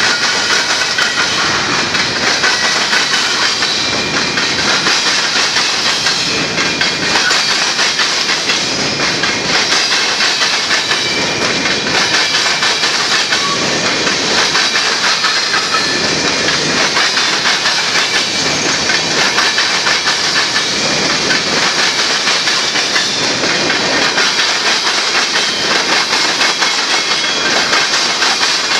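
Freight train cars, covered hoppers then tank cars, rolling past close by: the steady, loud rumble and rattle of steel wheels on the rails with a clickety-clack of wheels over the rail joints and a high steady hiss.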